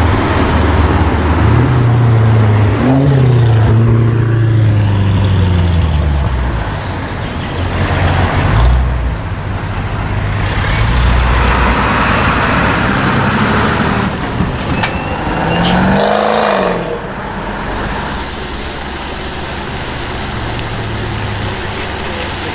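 Audi RS6 engine and exhaust running loud, revved several times with the pitch rising and falling, strongest in the first few seconds, with one more short rev about two-thirds of the way through.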